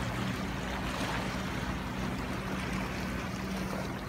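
Steady wash of wind and sea waves on a rough sea, with a low steady hum underneath.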